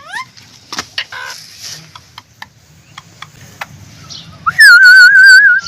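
Green ring-necked parakeet making scattered clicks and short chirps, then near the end a loud warbling whistle, about a second long, that wavers quickly up and down.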